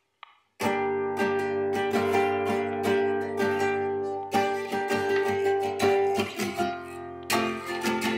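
Background music: a strummed guitar, starting suddenly about half a second in, with even, repeated strums.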